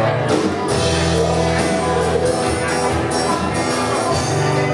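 Live rock band playing: electric and acoustic guitars, drums and keyboard, with a vocalist singing over a steady drum beat.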